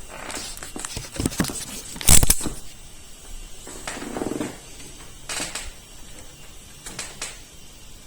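Scattered clicks and knocks of objects being handled, the loudest one about two seconds in, with a short low scrape or hum around four seconds.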